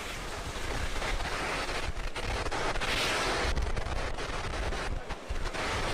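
Falcon 9's nine first-stage Merlin engines during ascent, heard from the ground as a continuous rumble with a rapid crackle. The sound dips briefly about two seconds in and again about five seconds in.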